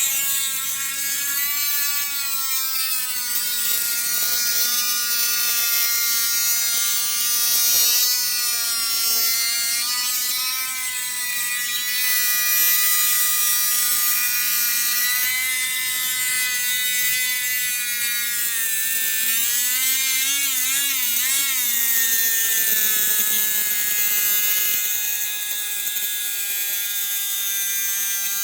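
Dremel Stylo+ rotary tool with a steel tile-cutting bit grinding into a hard seashell: a steady high motor whine over a gritty hiss, its pitch wavering as pressure on the bit changes, with a brief wobble about two-thirds of the way through.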